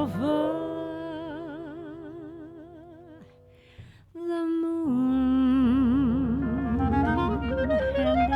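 Background music from a jazzy vintage-style song: a held, wavering melody note fades away, a brief gap follows about three and a half seconds in, then a new phrase starts with another held, wavering note over a bass line.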